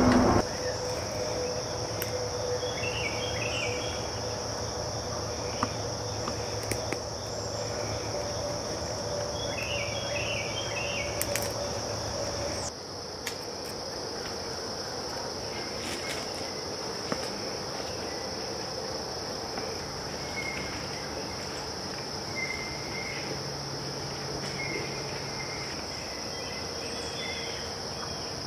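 Woodland insects droning steadily at a high pitch, with a few short chirps and faint clicks over it.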